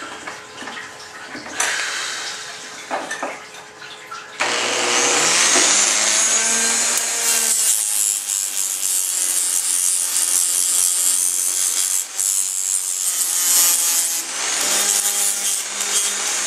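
Scattered handling noises, then about four seconds in a loud, steady abrasive scrubbing starts abruptly and keeps going as old gasket goo is cleaned off a 1987 Suzuki GS450's intake parts.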